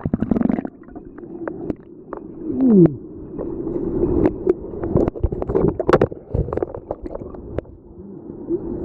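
Underwater sound in a plunge pool, heard through a submerged camera: muffled gurgling and bubbling with many scattered clicks and knocks, and one falling bubbly glide a few seconds in. The hiss of the waterfall above is cut off as it goes under.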